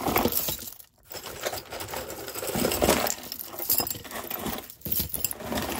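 A handful of mixed costume jewelry (pearl strands, wooden beads, metal chains and bangles) jangling and clinking as it is dumped and spread onto a table, in uneven bursts with short pauses.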